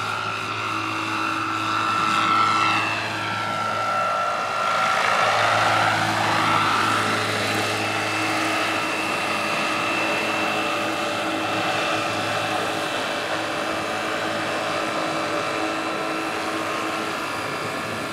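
Large battery-electric radio-controlled AH-64D Apache scale model helicopter with its motor and rotors running, a steady whine over rotor noise. The pitch dips and rises a few seconds in as it flies low and sets down, then holds steady while the rotors keep turning on the ground.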